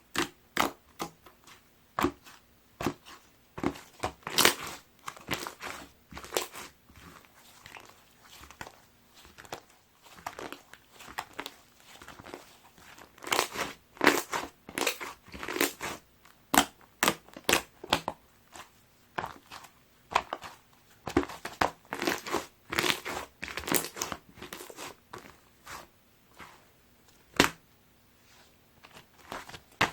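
Light green slime being squished and stretched by hand, giving irregular clusters of sharp crackling pops with short quiet gaps between.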